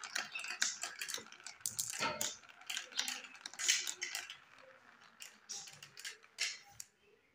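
Marbles rolling down a plastic marble-run track of wavy tiles, rattling and clicking, and dropping into a toy truck's plastic trailer. The quick clicking thins out about four and a half seconds in, leaving scattered clicks until near the end.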